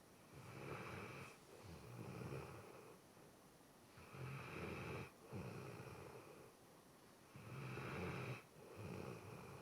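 A sleeping pet snoring: three snores about three and a half seconds apart, each in two parts with a brief break between them.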